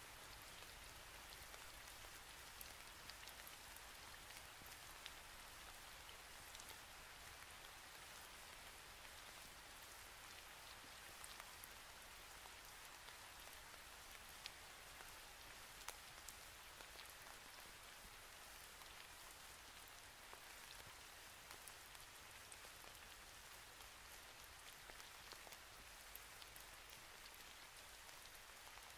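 Near silence: a faint, steady hiss with a few scattered faint ticks.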